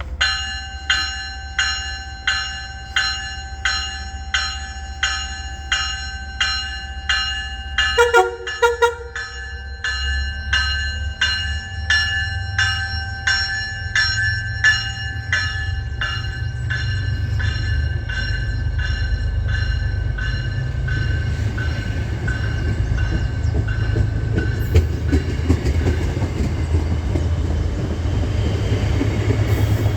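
A warning bell rings about twice a second while the Hyundai Rotem cab car's horn sounds a quick series of short blasts about eight seconds in. The train then rumbles past with wheels clacking on the rails, growing louder as the bell fades out.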